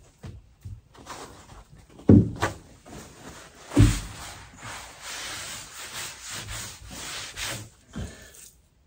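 Two thumps, then a few seconds of steady rubbing as a paper towel is wiped over a wooden cleaning table.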